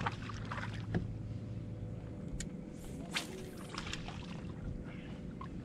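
A hooked crappie being landed at the side of a boat: small clicks and a brief splash about three seconds in as the fish is lifted from the water, over a steady low hum.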